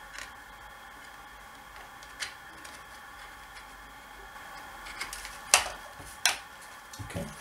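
Scattered light clicks and taps of the plastic quadcopter arm and frame being handled while motor wires are fed through. The loudest is a sharp click about five and a half seconds in, with another soon after, over a faint steady hum.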